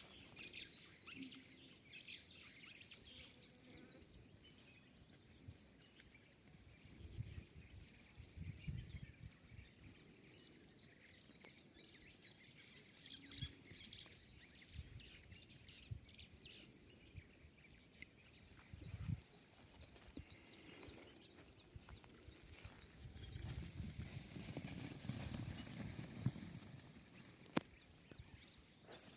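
Countryside ambience: a steady, high insect drone, with bird chirps in the first few seconds and occasional low rustling bumps.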